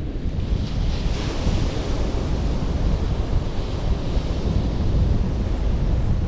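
Sea waves breaking and washing up a shingle beach, with wind buffeting the microphone in a steady low rumble. The hiss of the surf swells about a second in and again around four seconds.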